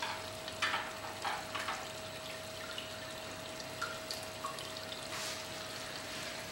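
Metal spoon clinking and stirring in a small steel pan of mutton stock, with light trickling and splashing of liquid, over a faint steady hum.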